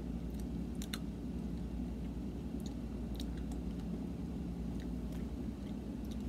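A child chewing candy with the mouth closed: scattered faint wet clicks and smacks, over a steady low background rumble.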